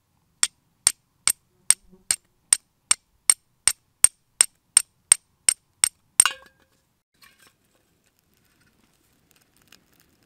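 Steel striker being struck against a flint, about sixteen sharp metallic strikes about 0.4 s apart, the last one louder and longer.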